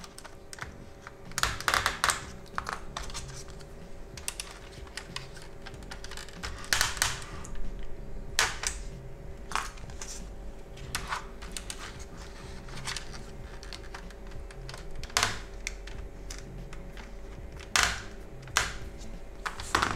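Irregular small clicks, taps and scrapes of a screwdriver prying the plastic pointer needles off a VW Golf 5 instrument cluster over a protective card, with a few sharper clicks along the way.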